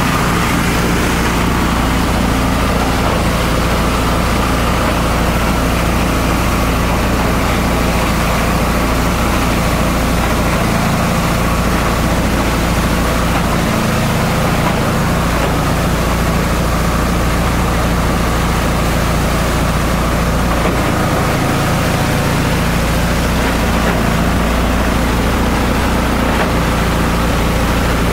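Esteban multi-purpose chopper-shredder running loud and steady, a low hum with a fainter higher whine, as it shreds the material being fed into it.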